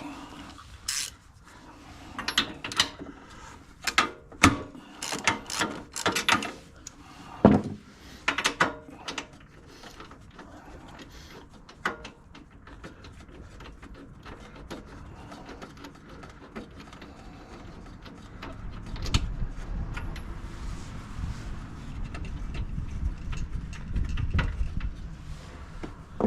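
Ratchet with a 13/16 spark plug socket being worked on a snowblower engine: a run of sharp clicks and metal knocks as the spark plug is loosened and taken out, over the first nine seconds or so. After that there is quieter handling noise, and a low rumble near the end.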